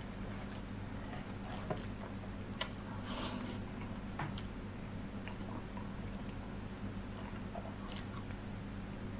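Close-up mouth sounds of chewing a mouthful of rice and curry, with wet smacks and squelches as fingers mix rice into curry on the plate. Scattered sharp clicks and smacks run over a steady low hum.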